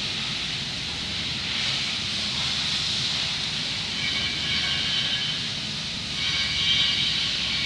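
Steady hiss of a spray booth's ventilation airflow. Masking tape is pulled off its roll in screechy strips about four seconds in and again from about six seconds in, while masking paper is taped over a car window.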